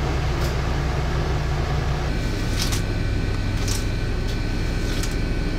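Steady low mechanical hum of a motor yacht's on-board machinery running at the dock, with a thin steady whine joining about two seconds in and a few faint clicks.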